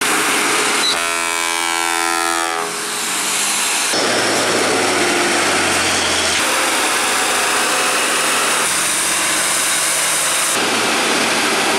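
Heavy dump trucks climbing a hill with their engines running under a dense, loud noise. About a second in, a multi-tone truck air horn sounds for about a second and a half. The sound changes abruptly a few times as one passing truck gives way to another.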